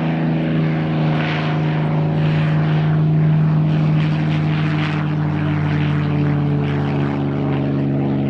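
Propeller aircraft's piston engine running steadily. Its pitch sags slightly in the second half as it passes.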